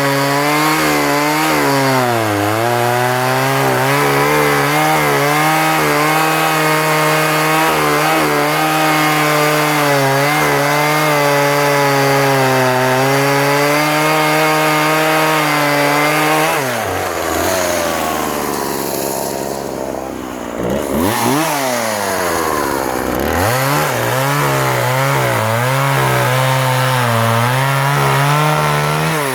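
Husqvarna 136 chainsaw's 36cc two-stroke engine running at full throttle while cutting through timber, its pitch dipping slightly under load. About halfway through it drops to idle, is revved up twice, then goes back to full speed for a second cut and falls off again at the end.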